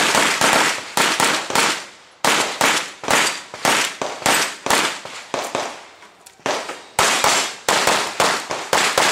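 Rapid pistol fire in a practical shooting stage: about twenty sharp shots, many fired in quick pairs, each ringing off briefly, with a pause of about a second past the middle before firing resumes.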